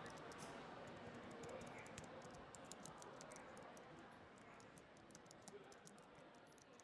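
Faint indoor public-space ambience: a distant murmur of voices and room noise with many scattered light clicks and taps, slowly fading out.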